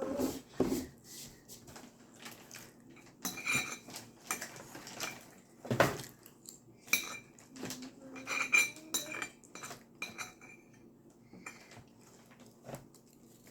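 Cutlery clinking and scraping against plates and dishes, in an irregular string of sharp clinks, some with a short metallic ring.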